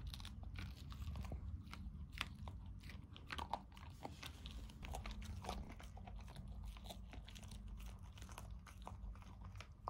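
A dog crunching and chewing a baked homemade dog biscuit: a faint, irregular run of crisp crunches.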